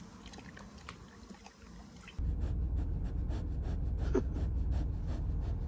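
Faint sounds of a dog drinking from a steel bucket. About two seconds in, the low steady rumble of a moving car's cabin starts, with a dog's rapid, even breathing close by.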